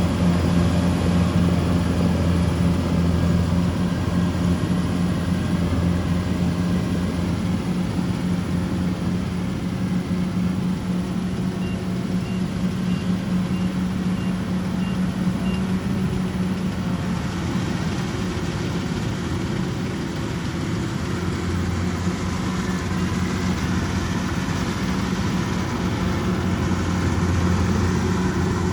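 Kubota DC-105X combine harvester's diesel engine running steadily while harvesting, a constant low engine hum that eases a little midway and builds back up near the end.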